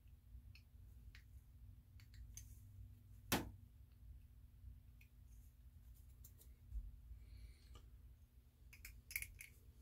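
Faint clicks and snips from small plastic model-kit parts being handled and clipped, with one sharper click about three and a half seconds in and a quick run of clicks near the end.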